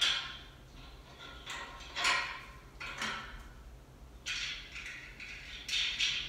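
Metal exhaust parts handled on the engine: about half a dozen short scraping, rattling sounds with pauses between them.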